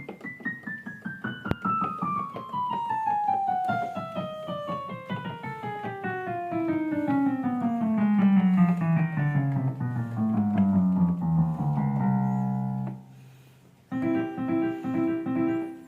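Roland EM-55 electronic keyboard with a piano-like voice, played one note after another in a steady run down from the top of its range to the bottom, stepping through the keys in turn as in checking them. The run ends on a low held note that fades out, and a short repeating pattern of notes starts near the end.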